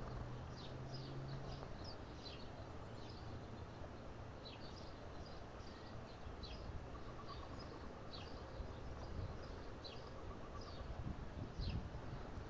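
Small birds calling with short, high, downward chirps, several a second and repeated throughout, over a steady outdoor background noise.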